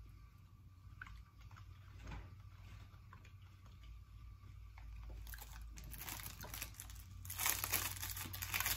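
Faint chewing of a soft snack, then a plastic snack wrapper crinkling from about five seconds in, louder near the end.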